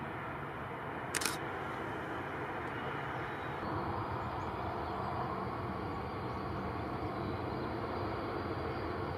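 Airbus A320-214's CFM56 jet engines running at taxi power, a steady rushing hum, with a thin high whine coming in about four seconds in. A single sharp click about a second in.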